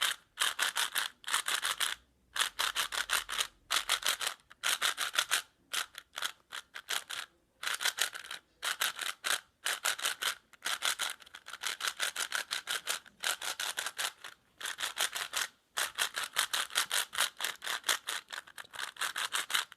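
Plastic Rubik's Cube layers being turned over and over by hand: runs of rapid clicking scrapes lasting a second or two each, broken by short pauses.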